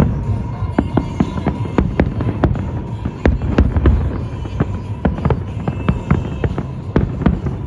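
Aerial fireworks exploding in quick succession: many sharp bangs, often several a second, over a continuous low rumble of shells bursting.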